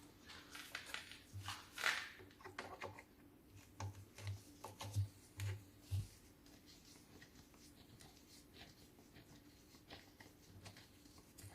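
Light handling noises: scattered clicks, small knocks and soft thumps of tools and parts being handled, busy for about the first six seconds and then dropping to faint occasional ticks.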